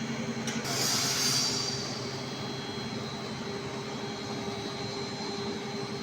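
Mini rice milling machine line running with a steady mechanical hum and a few held tones. A brief high hiss comes about half a second in, the loudest moment, then fades.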